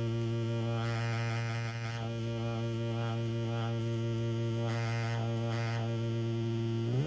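Breadboarded MFOS Weird Sound Generator, a CD40106 oscillator noise synth, holding a steady buzzy drone on one low pitch. Its upper tones swell and fade every second or two, and at the very end it breaks into a warbling, gliding pitch.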